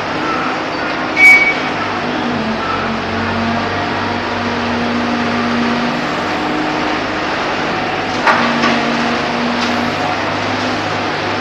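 Diesel engine of an underground mining loader (LHD) running steadily, with a sharp metallic clank about a second in and a smaller knock near eight seconds.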